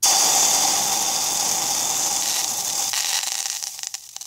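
Loud hissing noise that starts abruptly and holds steady, then thins into scattered crackling about three seconds in.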